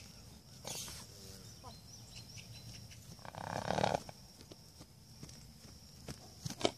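A two-year-old Friesian–Appaloosa cross horse moving around a round pen, her hooves knocking on dry ground. About three seconds in comes a loud, breathy snort lasting under a second.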